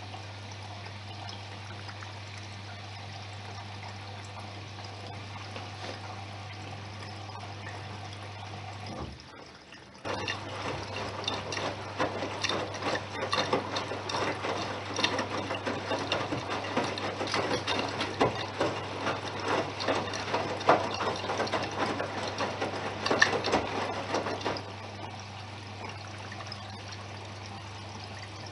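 Bosch Serie 6 front-loading washing machine with water running and splashing inside it over a steady low hum. The water sound grows louder about ten seconds in, with many small splashes, and eases off again near the end.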